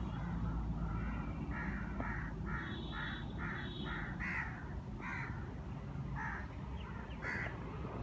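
Crow cawing: a quick run of about eight caws, then a few single caws about a second apart.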